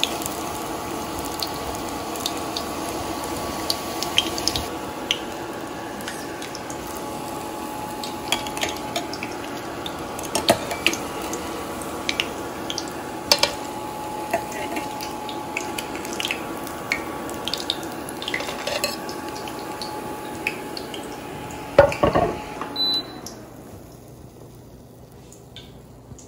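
Breadcrumb-coated bread rolls frying in hot oil in a steel pan: a steady sizzle with frequent crackles and pops, and a few clinks of a metal turner against the pan. About 22 seconds in comes a short clatter of knocks, and the sizzling stops soon after.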